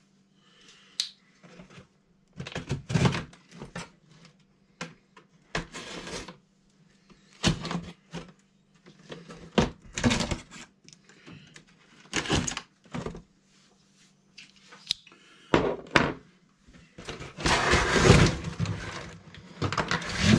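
Cardboard box and plastic packaging being handled: irregular knocks, thumps and scrapes of cardboard, then a few seconds of steady plastic crinkling near the end as the bagged car is lifted out.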